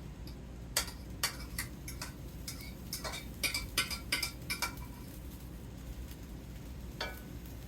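A spoon clinking against dishes in a quick, irregular run of light taps for a few seconds, then one more clink near the end, as the tomato mixture is spooned out.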